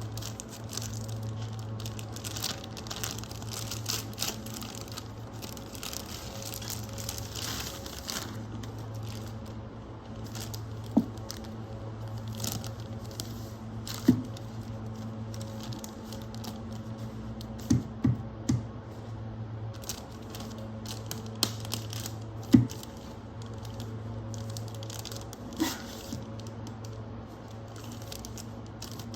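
Plastic packaging of a Barbie Color Reveal toy crinkling and tearing as it is unboxed, busiest in the first eight seconds. A few sharp taps and knocks follow later, over a steady low hum.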